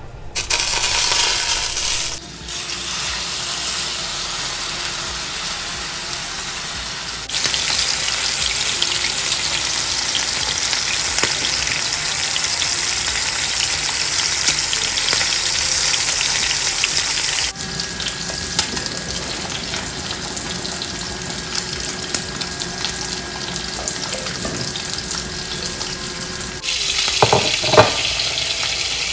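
Pork chops sizzling in butter in a pan over high heat: a steady crackling hiss that jumps abruptly in loudness several times. A short clink near the end.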